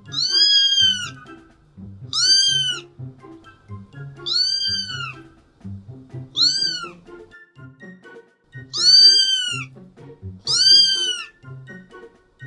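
Cat meowing six times, about every two seconds, each meow a high call that rises and falls. The meows are alike in shape and play over background music with a steady beat.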